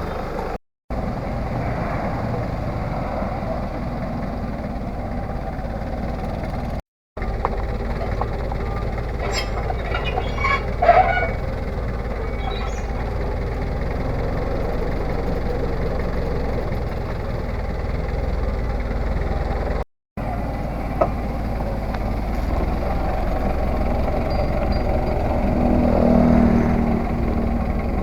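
Three-wheeled farm tractor's engine running steadily, with a cluster of brief clatter and knocks about ten seconds in. The sound drops out briefly three times at edit cuts.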